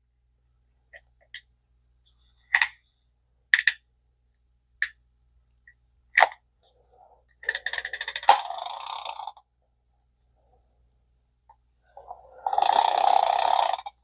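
Early-1960s Zebco 33 spincast reel being worked by hand. A few separate clicks come first, then two spells of rapid ratcheting, gear-driven clatter as the reel's mechanism is turned over.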